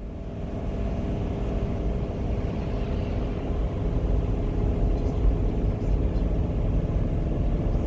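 RV driving on the road: a steady low engine drone and road rumble.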